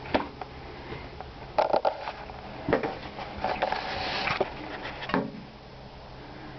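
Scattered knocks and clatters, with a short scraping rush in the middle, from someone moving about and handling fittings in a travel trailer's small interior.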